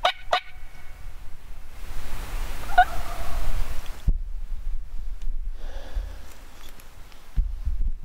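Merriam's wild turkey gobbler gobbling: a quick rattling gobble right at the start, and another call about three seconds in.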